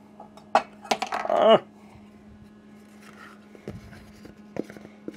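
A wire whisk clattering against a steel saucepan and being set down: a quick run of metallic clicks with a short ringing tone that falls in pitch, about a second in. Later come a few soft knocks and scrapes of a spatula on a plastic mixing bowl as batter is scraped out, over a steady low hum.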